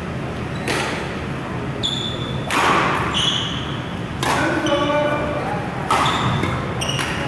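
Badminton rally: rackets striking the shuttlecock in turn, five sharp hits about every one and a half seconds, with short squeaks from court shoes on the floor between the hits.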